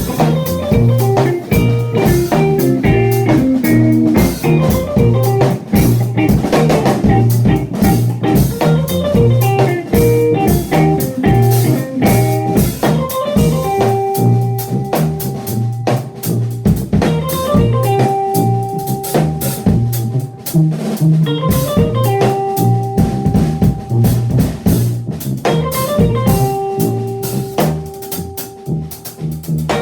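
Live funk-jazz trio playing: guitar, tuba bass line and drum kit. A run of guitar notes in the first half gives way to repeated held notes from about halfway through.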